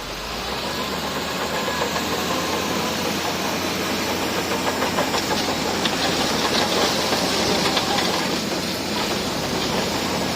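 Bulldozer engine running steadily, with a rapid metallic clicking and clatter from its steel tracks in the middle of the stretch.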